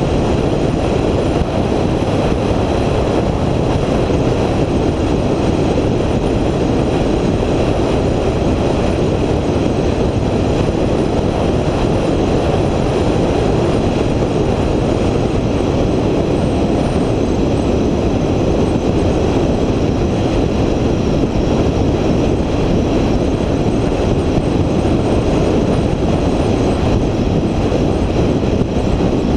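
Steady noise of a vehicle on the move, a constant mix of road and wind noise that holds an even level with no breaks.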